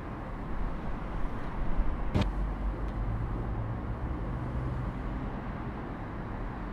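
Outdoor street ambience: a steady low rumble of traffic, with a faint engine-like hum in the middle and one sharp click about two seconds in.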